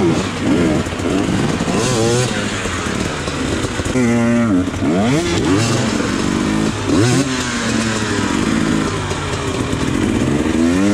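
Several off-road dirt bike engines, at least one of them a two-stroke, revving hard in short bursts over and over, the pitch climbing and dropping back as the riders try to get their bikes over a large log.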